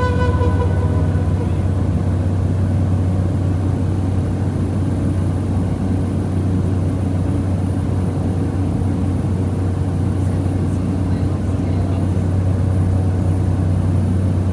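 Steady drone of a small high-wing airplane's engine and propeller heard inside the cabin in flight: a strong low hum over an even rushing noise.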